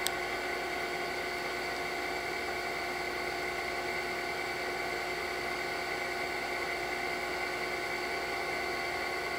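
Steady background hum and hiss with several faint, steady whining tones layered in it, with no distinct events.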